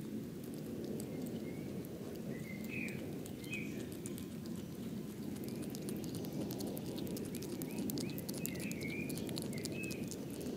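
European hedgehog chewing cheese, with rapid fine clicks of its chewing over steady low background noise. Short bird chirps come in two groups, about two seconds in and again about seven seconds in.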